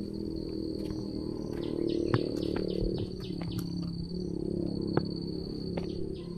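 Insects calling in one steady, high buzzing tone over a low hum, with scattered sharp clicks.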